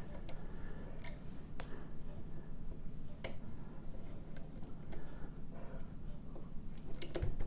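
Scattered light metallic clicks and ticks as an ABUS dimple padlock is handled and a homemade holder cut from a wiper insert is fitted back into it, over a low steady hum.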